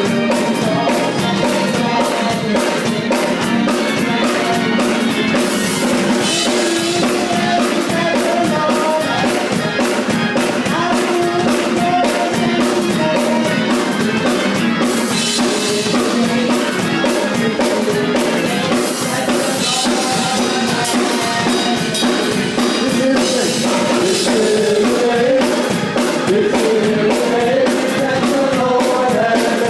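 Church worship music: singing over a band with a drum kit keeping a steady beat.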